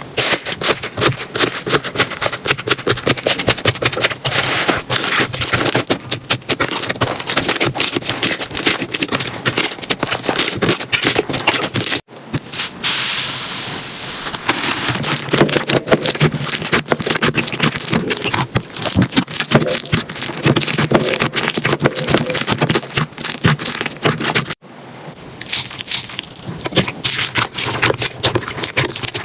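Slime being squished and worked, giving a dense stream of crackling and popping clicks. The sound breaks off suddenly twice as it cuts to a new clip of slime play.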